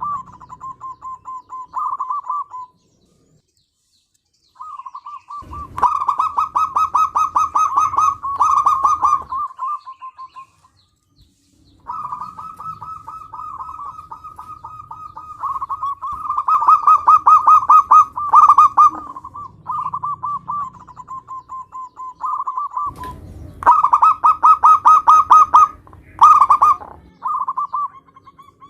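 Zebra dove (perkutut) cooing: phrases of rapid, pulsed coos around one pitch, recorded loud. The phrases are broken by short silences a few seconds in and again about ten seconds in.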